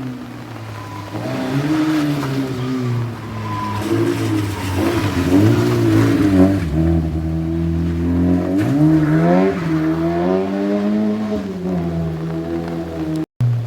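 Car engine revving hard, its pitch rising and falling again and again as the car is driven through the show; the sound cuts off suddenly near the end.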